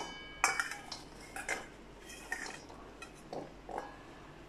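Onion pieces tipped from one stainless steel bowl into another: a string of light, irregular taps and clinks of steel on steel, a few of them ringing briefly.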